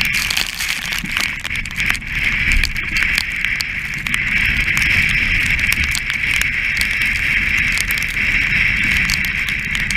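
Wind and rough sea rushing past a sailing yacht's bow, with a steady hiss and frequent sharp ticks from spray striking the camera.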